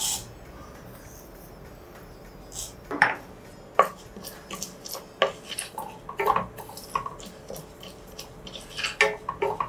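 Spoon clinking and scraping against a pan while poppy seeds and raw rice are stirred in dry-roasting: a sharp knock at the start, two more about three seconds in, then quick repeated clinks for the rest.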